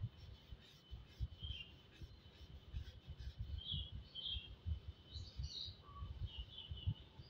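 A pencil shading on drawing paper: soft repeated strokes and light knocks against the drawing surface. Small birds chirp in the background several times, from about a second and a half in, over a faint steady high tone.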